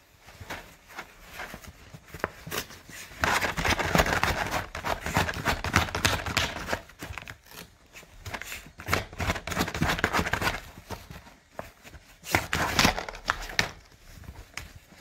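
Jack Russell terrier rummaging in and tearing at crinkly pizza packaging: irregular bursts of crinkling and ripping, loudest in the middle stretch and again briefly near the end.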